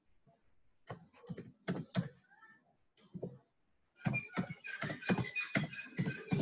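Typing on a computer keyboard. A few scattered keystrokes come first, then a quick run of keys from about four seconds in.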